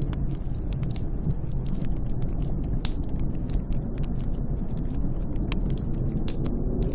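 Snowstorm wind heard from shelter: a steady low rumbling rush with faint wavering howls that rise and fall, and scattered sharp crackles throughout.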